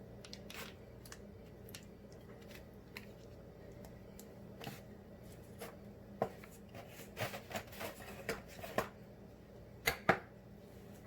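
Scattered light clicks and taps of a kitchen utensil, most frequent and loudest in the second half, as sauce is spread over pizza dough. A steady low hum runs underneath.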